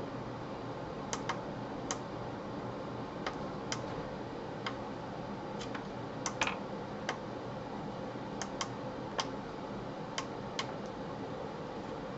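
Small pushbuttons on the back of an LED wall clock being pressed: sharp clicks at irregular intervals, some in quick pairs, over a steady background hiss.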